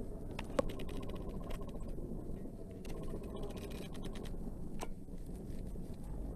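A thin metal carving instrument scraping and picking at a bar of soap: faint irregular scratches and small clicks over a steady low background hum.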